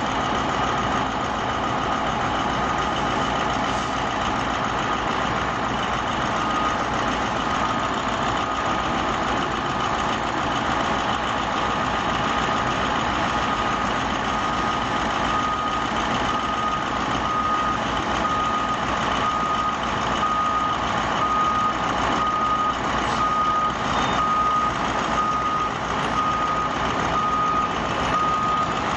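A giant P&H wheel loader with a LeTourneau bucket runs its engine as it lowers its bucket. About halfway through, a high-pitched reversing alarm starts beeping steadily and keeps on.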